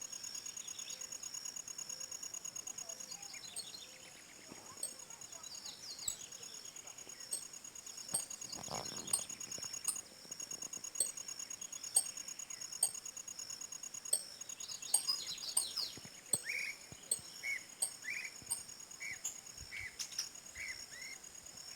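Insects trilling steadily with a high, even buzz while several birds chirp and call over it. In the last few seconds one bird repeats a short note about twice a second.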